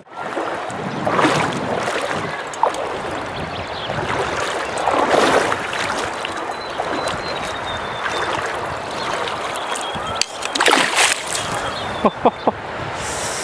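Shallow stream water running over stones, with intermittent splashing that swells a few times, and three sharp clicks near the end.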